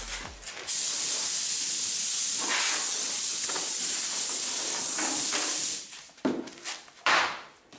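Compressed-air blowgun blowing a long, steady hiss for about five seconds, then a few short blasts. The air is being forced between a fiberglass part and its mold to pop the part loose.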